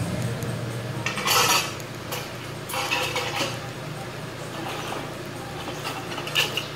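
Cut aluminium window-frame profiles clinking and knocking as they are handled and set down on a tiled floor, several light metallic knocks at uneven intervals over a steady low hum.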